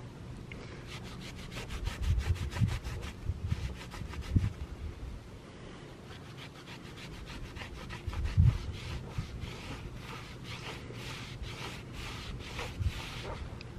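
Microfiber towel rubbing over a black-painted alloy wheel rim, wiping it down with wax and grease remover: a quick run of repeated rubbing strokes, with a few low thumps.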